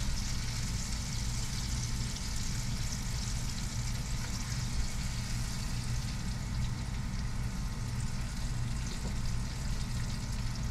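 Breaded catfish frying in hot oil in a cast iron pot: a steady sizzle, with a low steady hum underneath.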